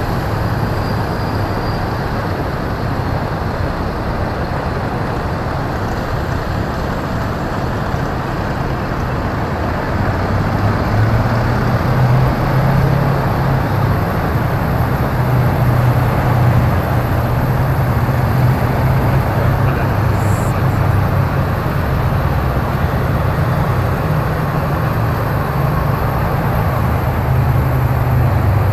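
A column of tracked armoured military vehicles driving past in file: a steady deep diesel engine drone with track and road rumble, growing a little louder about ten seconds in.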